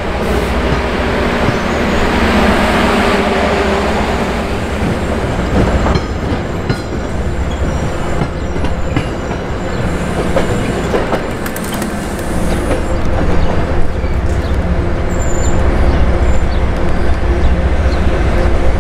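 MBTA commuter rail coaches rolling past close by: a steady rumble of wheels on the rails with scattered clicks and a brief high wheel squeal about two-thirds of the way through.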